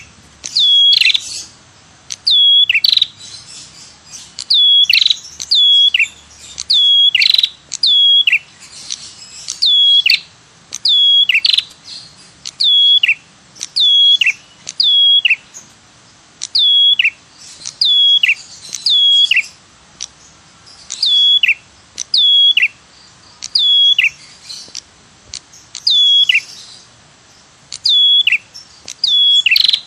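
Red-headed prenjak (cemplik) lure call: sharp 'tirr tiirr' notes that drop steeply in pitch, given mostly in pairs and repeated about every one to two seconds.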